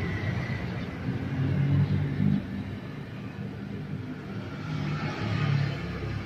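A vehicle engine running with a low rumble that swells twice, about two seconds in and again near the end.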